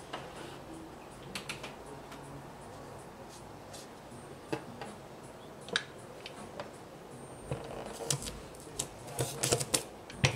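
Printmaking tools handled on a wooden tabletop: scattered light taps and knocks, then a quick run of clicks and rattles in the last few seconds as the rubber ink brayer is set down and moved.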